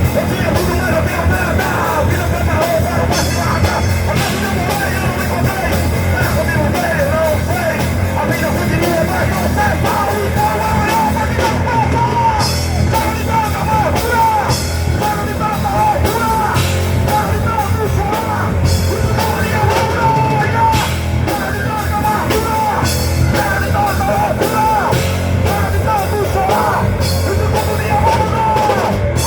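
Rock band playing live, loud and steady, with a singer over the band.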